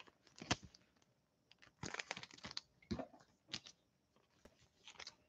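Faint, scattered crinkles, scrapes and clicks of Panini Optic football card packs and cards being handled.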